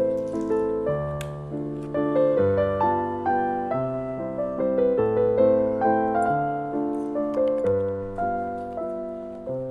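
Background piano music: a gentle melody of single notes over soft bass notes, played at an even, unhurried pace.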